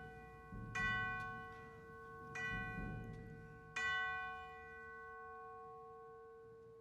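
Orchestral tubular bells struck three times, about a second and a half apart, each stroke ringing on and slowly fading, over a steady held note.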